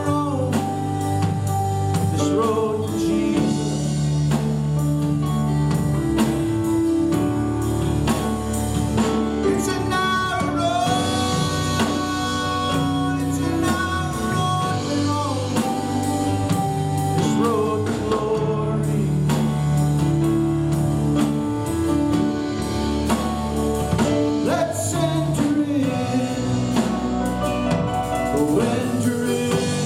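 Live gospel worship song: a man sings into a microphone while strumming an acoustic guitar, with a drum kit keeping the beat behind him.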